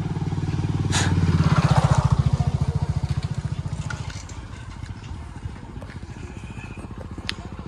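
Motorcycle engine running close by, a steady low pulse that grows louder to about two seconds in and then fades. A short crackle sounds about a second in.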